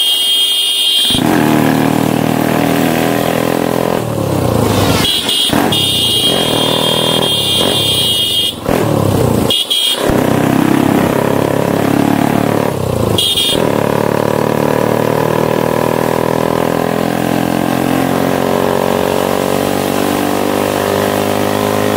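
Motorcycle engine running at speed while being ridden, its pitch rising and falling with the throttle. A vehicle horn sounds several times over it, once held for a couple of seconds in the first half.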